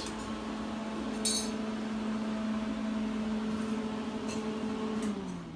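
Welder running with a steady hum, likely its cooling fan, then switched off and winding down, the hum falling in pitch and fading near the end. A light metallic clink about a second in.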